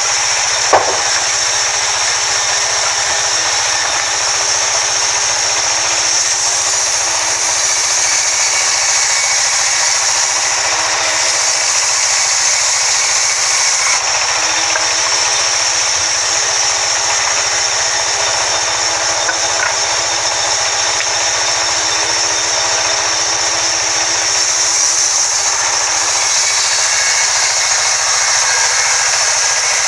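Sawmill band saw running steadily as its vertical blade rips through a log being pushed along the table, cutting off a slab. A single sharp knock about a second in.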